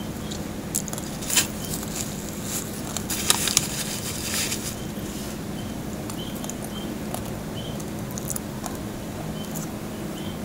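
Crispy deep-fried pork knuckle skin crackling as fingers tear pieces off, in a few sharp bursts during the first half. Short faint high chirps repeat through the second half over a steady low hum.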